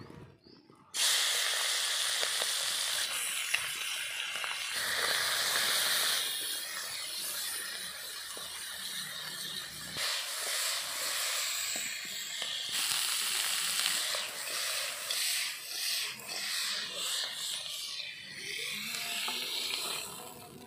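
Small tangra fish, coated in turmeric, dropped into hot oil in an iron kadai: a loud sizzle starts suddenly about a second in and keeps on, swelling and easing as they fry, and fades near the end.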